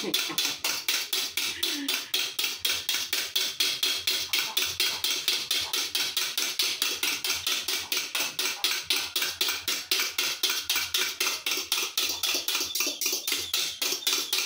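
A fork beating eggs by hand in a bowl, clicking against the bowl in a fast, steady rhythm of about five strokes a second. The eggs are being whipped to a foam without an electric mixer.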